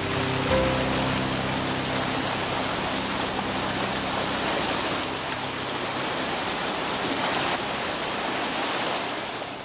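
Mountain creek rushing over boulders: a steady, full sound of whitewater.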